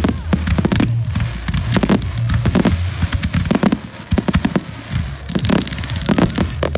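Aerial fireworks shells bursting in quick succession, with many sharp bangs and crackles and a brief lull about two-thirds of the way through.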